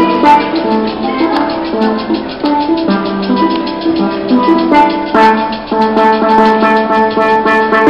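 Steel pan played live, a quick melody of ringing metallic notes over a steady percussive beat.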